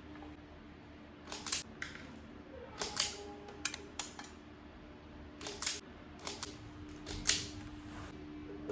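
Electrician's hand tools snipping and clicking while working on fire alarm speaker wiring: a series of short sharp snips and clicks, some in quick pairs, over a faint steady hum.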